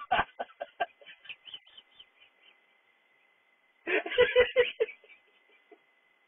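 A person laughing in short choppy bursts that fade over the first two seconds, then a louder burst of laughter about four seconds in.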